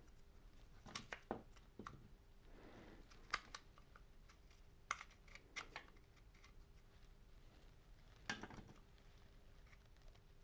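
Scattered light clicks and clinks of small metal parts and tools being handled, a few at a time, over a faint steady hum.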